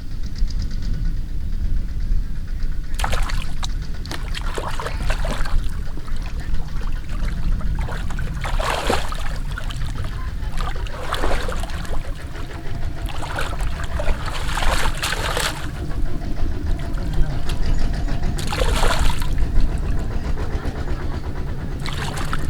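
Water splashing and sloshing in irregular bursts, about seven of them, over a steady low rumble.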